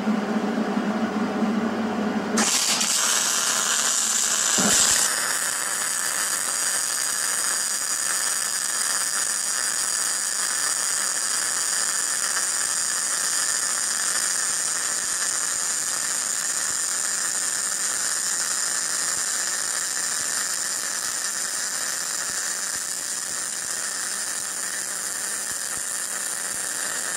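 Hobart 187 MIG welder's arc running a steady hissing weld bead on 3/8-inch steel plate with .030 wire, pulled (dragged) along the joint near the welder's maximum setting. The arc strikes about two and a half seconds in, after a low hum.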